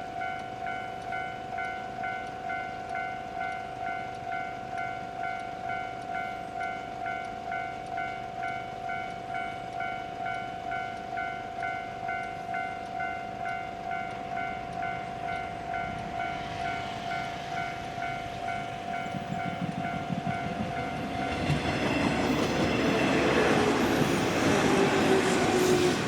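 Japanese railway level-crossing warning bell ringing in an even pulse, about two strokes a second, while a 201 series electric train approaches. The bell pattern drops out about 21 seconds in as the train reaches the crossing and runs past, close and loud, with a falling whine near the end.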